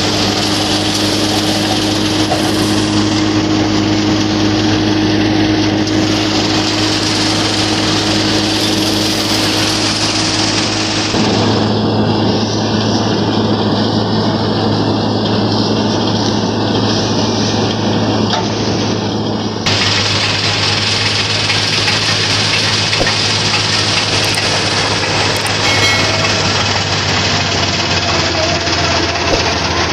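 Mahindra 475 tractor running steadily under load, driving a belt-and-pulley kutti machine that cuts dry crop stalks, with a constant low hum and a clatter of machinery. The sound changes abruptly about 11 and 20 seconds in.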